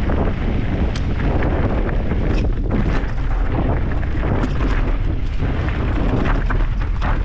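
Mountain bike ridden over a rough dirt trail: a steady low rumble of wind buffeting and tyres on the microphone, broken by frequent sharp clicks and rattles from the bike.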